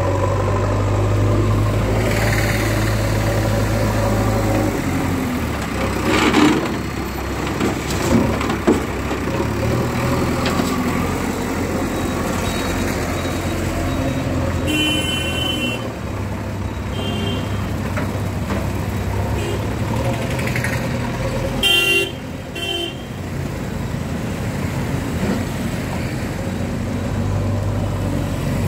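JCB backhoe loader's diesel engine running steadily while it moves a loaded front bucket, its engine note dropping and rising with the work. There are a few knocks in the first third, and a vehicle horn honks briefly twice, once about halfway and again about three-quarters through.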